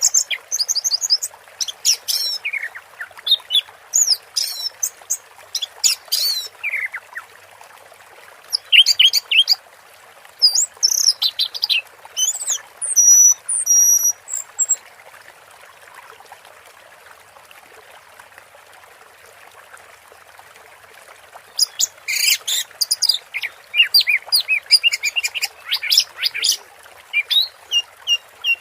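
Orange-headed thrush (anis merah) singing in the 'teler' style: quick runs of varied high whistles, trills and mimicked notes, breaking off for several seconds in the middle and then resuming in a dense burst near the end. Underneath runs a steady hiss of flowing water.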